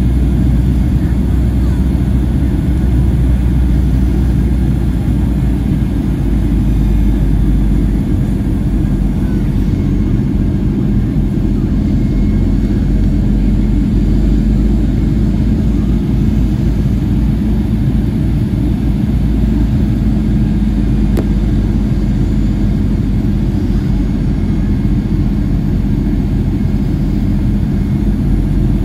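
Cabin noise inside a Southwest Airlines Boeing 737 in flight: a loud, even, low rumble of the jet engines and the air rushing past the fuselage, with a steady hum running through it.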